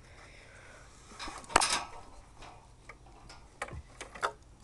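An animal eating from a bowl on the ground: scattered clicks and knocks against the dish, a loud cluster about a second and a half in and several sharp ones near the end.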